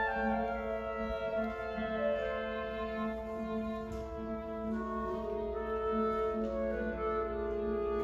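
Youth symphony orchestra playing a passage of held notes that move smoothly from one to the next, with woodwinds and strings sounding together.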